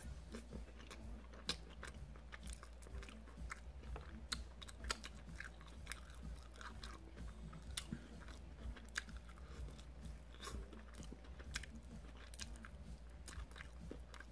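Close-up chewing and biting of chicken wing meat, with irregular small crunches and mouth clicks. A faint steady low hum runs underneath.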